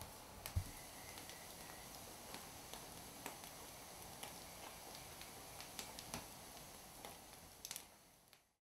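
Wood fire crackling in a grate, a faint steady hiss with scattered sharp pops and a low knock about half a second in. The sound fades out near the end.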